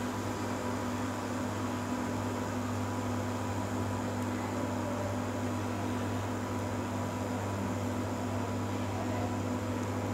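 Iris Ohyama induction cooktop heating a pot of water: a steady electrical hum with the whir of its cooling fan.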